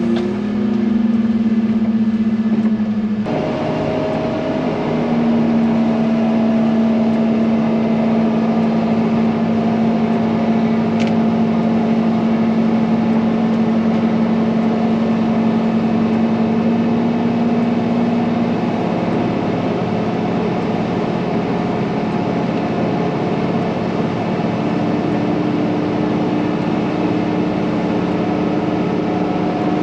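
Heavy diesel engine of a wheel loader plowing snow, running at steady revs with a constant hum. The sound changes abruptly about three seconds in, then holds steady again.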